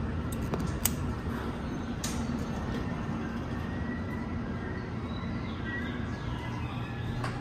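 Dover hydraulic elevator answering a hall call: a sharp button click about a second in, then the car doors sliding open, over a steady low hum.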